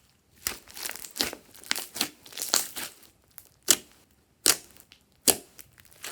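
Slime being squished and folded by hand, with wet crackling for the first half, then three sharp pops about a second apart.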